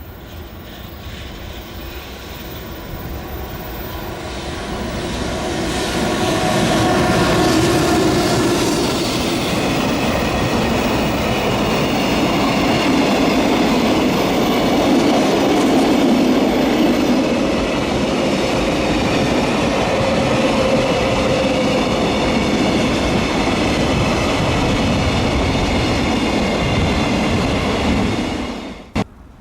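A freight train drawn by an electric locomotive approaches and runs past, its rumble and wheel clatter on the rails growing louder over the first few seconds and then holding steady as the wagons go by. The sound cuts off suddenly near the end.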